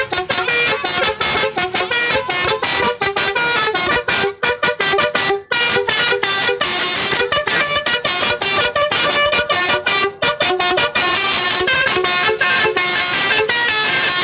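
Bus telolet basuri musical horn playing a tune: a fast run of short horn notes stepping up and down in pitch, with a few brief breaks near the middle.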